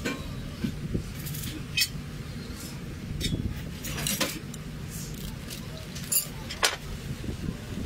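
Scattered light metallic clinks and knocks, as of metal parts or tools being handled, over a steady low hum.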